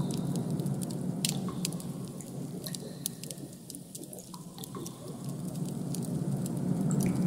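Designed ambient soundscape: a steady low rumbling drone with scattered small clicks and crackles over it, dipping quieter around the middle.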